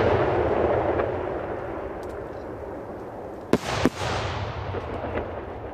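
Aerial firework shells bursting. A loud rumbling wash fades over the first couple of seconds, then two sharp bangs come in quick succession about three and a half seconds in, followed by lower rumbling.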